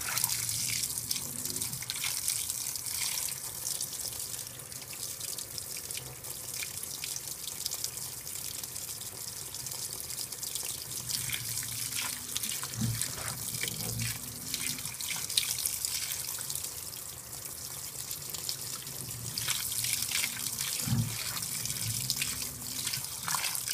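2012 LG top-load washer filling: streams of water pour steadily into the turning wash basket over the clothes, under a low hum. Two short low thuds come about 13 and 21 seconds in.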